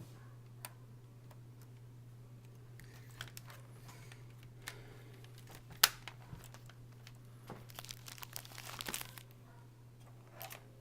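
Handling noises from laptop repair work: scattered small clicks of plastic parts, one sharp click about six seconds in, and a burst of crinkling near the end, over a steady low hum.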